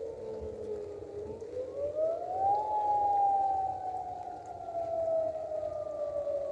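Dam emergency warning siren wailing during a scheduled test. Its pitch sinks a little, climbs steeply for about a second and a half, then slowly falls again.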